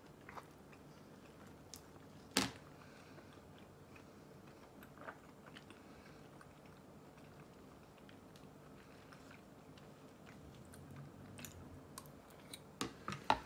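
A person chewing soft mochi rice cake, quiet mouth sounds. There are a few short clicks, with a sharper one about two seconds in and several more near the end.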